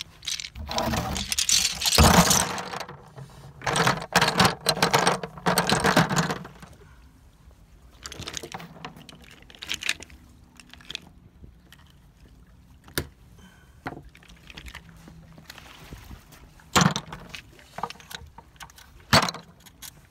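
Oyster shells clattering and scraping against each other as they are handled over a plastic bucket, in two loud stretches near the start. Several separate hard clicks and knocks follow later on.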